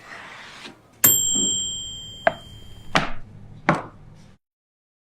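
A utensil strikes a dish with a clear ringing note that lasts about two seconds, followed by three short knocks; all sound cuts off abruptly near the end.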